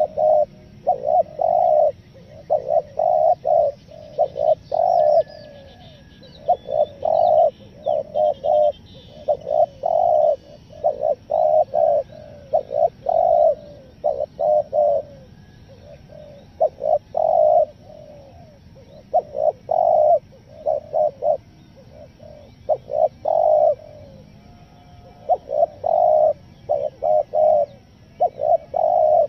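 Spotted dove cooing over and over in phrases of several deep notes separated by short pauses, the rhythm uneven and stuttering. Faint chirps of small birds sound higher up about five to eleven seconds in.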